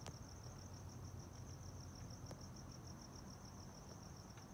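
Crickets chirping faintly in a steady, evenly pulsed trill, over a low background rumble. A single sharp click comes right at the start.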